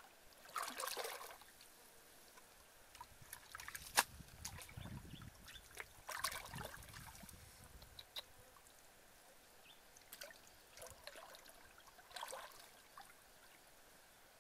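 Shallow muddy water splashing and trickling as hands grope and scoop through it, in short bursts with quieter stretches between. There is a sharp click about four seconds in.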